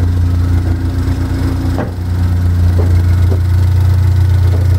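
Pontiac Solstice's turbocharged four-cylinder engine idling steadily on its first run with a newly fitted EFR turbocharger, running smoothly and sounding good.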